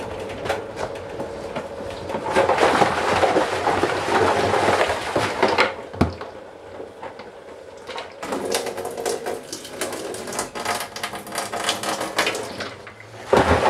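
Homebrew sterilising gear being handled in a plastic bucket: a few seconds of rustling and splashing, a single sharp knock about six seconds in, then a long run of small plastic clicks and rattles.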